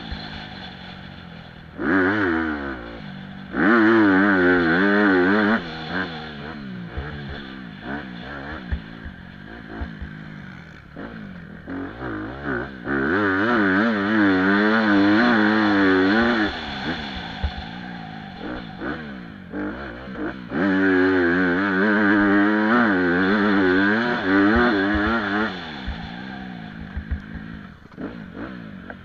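Honda CRF250 dirt bike's single-cylinder four-stroke engine ridden hard, heard from a camera on the bike: several long bursts of throttle with the revs rising and falling through the gears, and quieter off-throttle stretches between them with clattering over the bumps.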